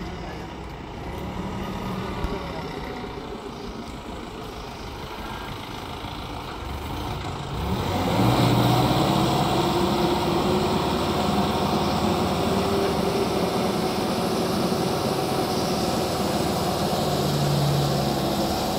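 4-ton diesel forklift engine running steadily. About eight seconds in it speeds up and gets louder, with a steady hum, as the hydraulics raise the triplex mast and forks.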